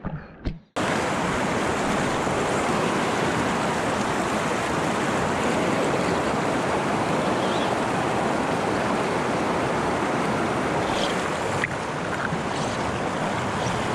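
Steady rush of a fast-flowing river current, starting abruptly about a second in.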